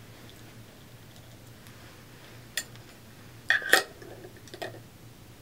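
A few short light clicks and clinks from a glass candy jar and its metal lid being handled. They come in a small cluster after the middle, with one sharper click standing out. A faint steady low hum lies underneath.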